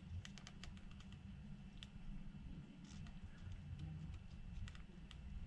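Faint scattered clicks and taps of gloved fingers handling an iPhone's flex-cable connectors and frame, over a low steady hum.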